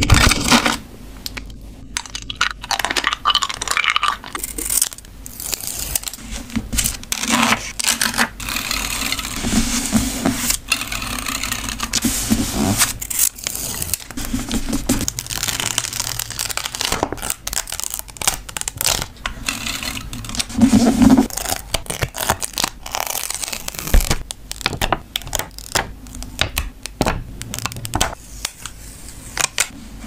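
Close-up paper-craft handling: printed stickers peeled off their backing sheet with tweezers, with paper rustling and crinkling and light scrapes and taps as the stickers are pressed down onto a journal page.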